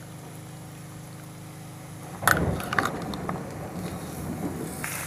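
Raw chicken pieces being added to a frying pan of hot mustard oil and golden-brown fried onions. About two seconds in the meat lands with a sudden loud splash and a couple of clicks, and it is followed by steady sizzling that gets brighter near the end.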